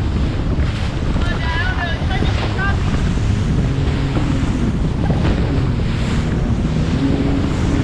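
Sea-Doo personal watercraft running fast over chop: steady wind buffeting the microphone and hissing spray over the engine's hum. A few short high-pitched sounds come about one to three seconds in.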